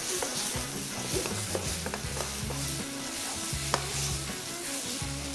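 Spaghetti in a cream sauce sizzling in a wok as a spatula stirs and folds it, with short clicks of the spatula against the pan and one sharper clack past the middle.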